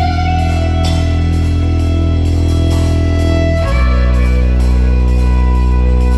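Live folk-band music: a fiddle plays over a drum kit keeping a steady beat, with a deep held bass note that drops lower about two-thirds of the way through.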